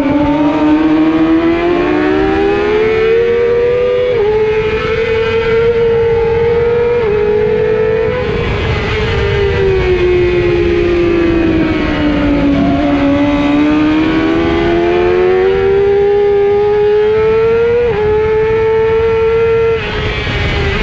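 600-class superbike engine at high revs under full throttle, its pitch climbing and stepping down at quick upshifts about two, four and seven seconds in. The pitch sinks as the rider eases off mid-way, then climbs again to another shift near the end, over steady wind rush.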